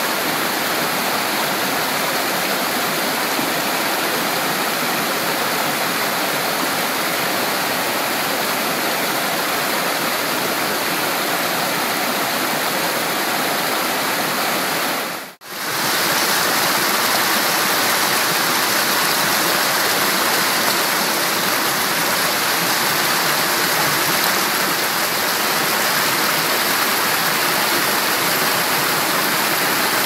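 Spring-fed stream rushing and splashing over boulders in small cascades, a steady noise. About halfway through it dips out for a moment, then comes back a little louder and brighter.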